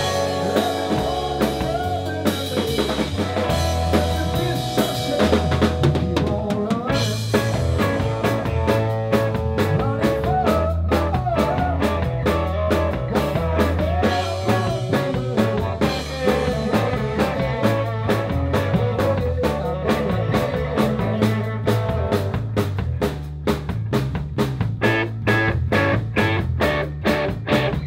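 Live rock band playing: electric guitar, electric bass and drum kit with a steady beat. Near the end the drums play sharp, evenly spaced hits.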